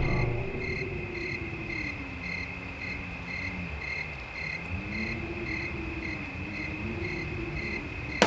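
Crickets chirping steadily in a fast, even pulse, with a low tone slowly rising and falling underneath.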